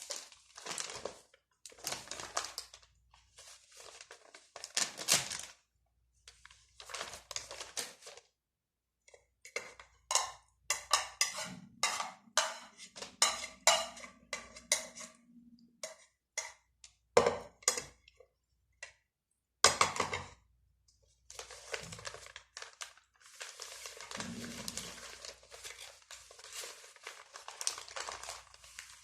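Eating at a plate: scattered clinks, taps and crinkling rustles of food being handled and eaten by hand.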